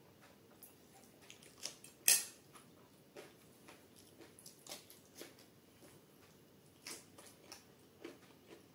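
Close-miked chewing of a mouthful of rice and chana dal, with a green chilli bitten into: scattered short crunches and wet mouth clicks, the loudest about two seconds in.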